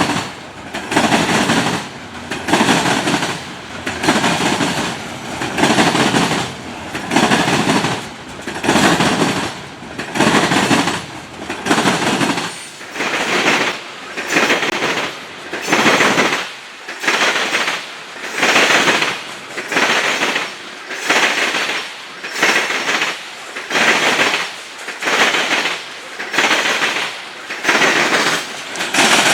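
Freight train cars rolling past, their wheels clattering over the track in a steady rhythm of about one clack a second.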